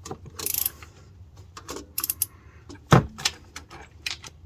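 Flex-head ratchet wrench with a deep socket tightening a starter motor's mounting bolt: short runs of ratchet clicks and scattered metal taps, with one loud knock about three seconds in.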